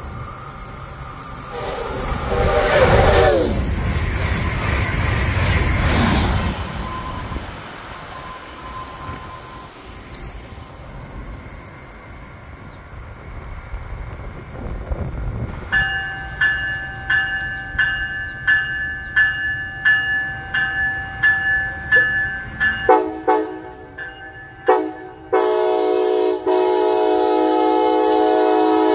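Amtrak Siemens ACS-64 electric locomotive and its train passing at speed, a loud rumble with a falling pitch. Later the locomotive's bell dings about twice a second, followed by a couple of short horn toots and one long chord-horn blast near the end.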